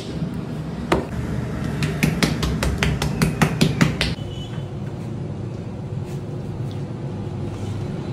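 Sharp knocks from food preparation: one about a second in, then a quick run of about ten, roughly four a second, over a steady low hum.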